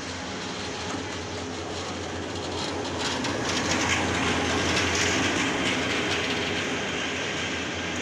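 Bangladesh Railway diesel-hauled passenger train passing close by: the diesel locomotive's engine growing louder as it draws level about three seconds in, then the coaches rolling past with wheel-on-rail noise.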